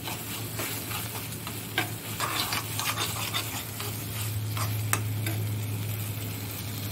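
Vegetable pizza masala sizzling in a steel saucepan on a gas stove as a spoon stirs and scrapes through it, with a few sharp clicks of the spoon against the pan. The mixture is being cooked down to dry out. A steady low hum runs underneath.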